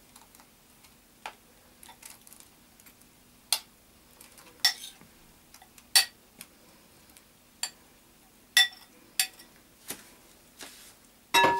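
Sharp, irregular clicks and knocks, about ten of them, from a container as raspberries are emptied out of it into a hollowed-out watermelon. Near the end comes a louder clink that rings briefly.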